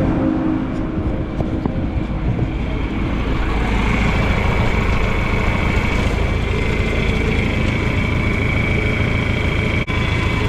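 Heavy farm machine engine running steadily with a low rumble; a steady high whine joins about four seconds in.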